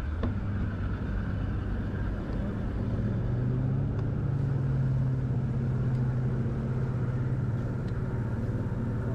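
Bass boat's outboard motor running under way, its pitch rising about two to three seconds in as it picks up speed, then holding steady.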